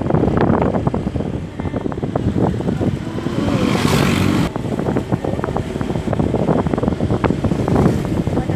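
Wind buffeting the microphone over motorbike and road noise on a ride, with a louder hiss a little past three seconds in that cuts off suddenly about a second later.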